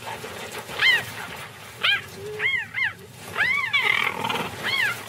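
Male cheetahs fighting, giving about six short, high yowls. Each call rises and falls in pitch, with two coming close together near the middle.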